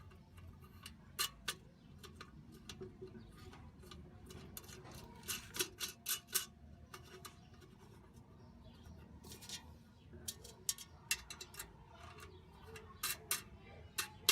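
Scattered light clicks and short scrapes of metal parts being handled, at irregular intervals, more of them near the end.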